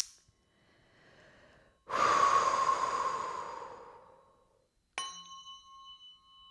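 A person breathes in softly, then lets out a long audible sighing exhale. About five seconds in, a tuning fork is struck and rings on with a steady high tone.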